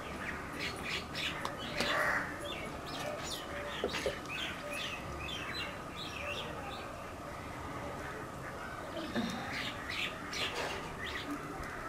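Small birds chirping: many short, high chirps scattered through, thinning out for a few seconds in the middle before picking up again.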